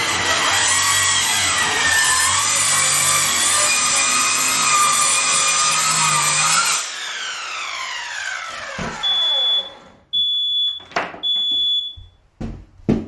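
Power saw cutting with a dull blade, released about seven seconds in and spinning down with a falling pitch. A smoke alarm then sounds in repeated high beeps, with a few sharp knocks between them.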